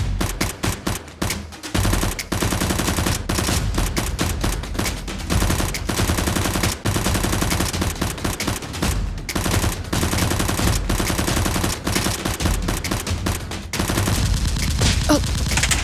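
Sustained rapid automatic gunfire, shooter-game style sound effects laid over Nerf blaster fire, with a few short pauses between bursts.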